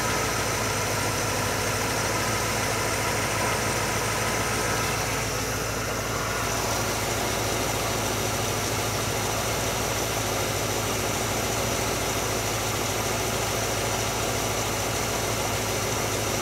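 Carbureted small-block Chevy V8 idling steadily, its idle mixture set rich at about 12.4 air-fuel ratio: idling fat. The sound shifts slightly about five seconds in.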